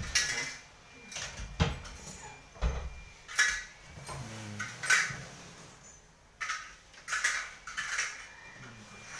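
Wooden panels of a fold-up wall bed and its sofa unit knocking and rattling as they are moved by hand: a string of sharp knocks and bumps about a second apart.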